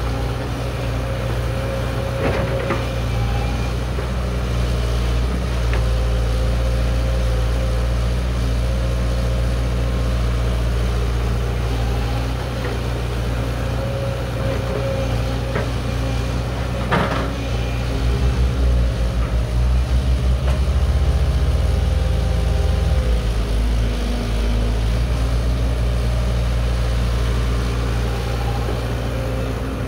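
Caterpillar 312B hydraulic excavator's diesel engine running steadily as it digs and dumps dirt into a dump truck. The engine works harder for a few seconds past the middle. Two sharp knocks come, one early and one past the middle.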